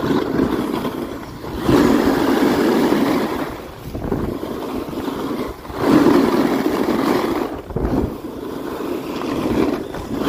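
Edges carving and sliding on groomed snow during a downhill run, a rushing scrape that swells with each turn, loudest twice, with wind buffeting the microphone.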